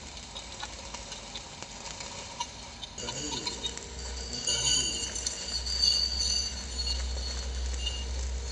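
Manual metal arc (SMAW stick) welding arc crackling and sizzling steadily as a bead is run around a steel pipe joint. It gets louder about three seconds in.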